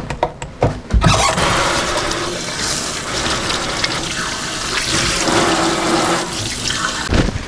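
Kitchen tap running into a stainless steel sink while hands are washed under it; the water comes on about a second in and stops near the end.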